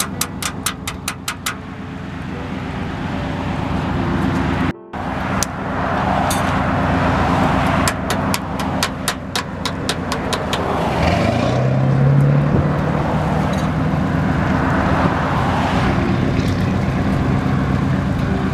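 Roadside vehicle noise with two runs of rapid, even clicking, one at the start and one about eight seconds in. An engine rises in pitch about eleven seconds in and then runs steadily.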